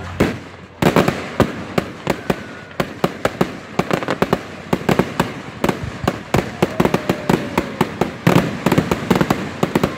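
Aerial fireworks launching and bursting in quick succession: a steady string of sharp bangs and crackles, several a second, with heavier bursts about a second in and again near the end.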